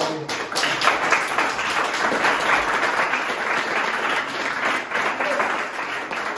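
Audience applauding, the clapping starting suddenly and holding steady.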